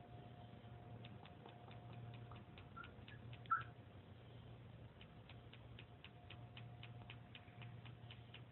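Faint rapid ticking, about four ticks a second, over a low steady hum, with a brief soft chirp about three and a half seconds in.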